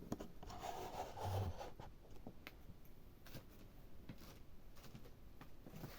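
Rubbing and scraping handling noise close to the microphone for about the first two seconds, then faint, scattered small clicks.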